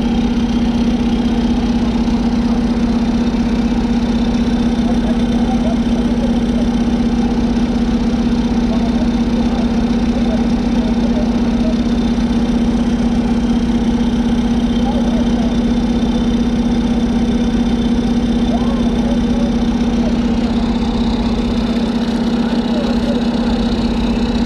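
A vehicle engine idling steadily, with an even, unchanging drone.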